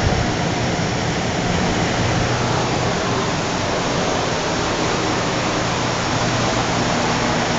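Vitronics-Soltec DeltaWave 6622 lead-free wave soldering machine running: a steady whooshing noise with a faint low hum underneath.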